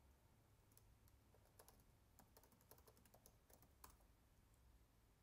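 Faint computer keyboard typing: a dozen or so separate key clicks at an uneven pace, one a little louder about four seconds in.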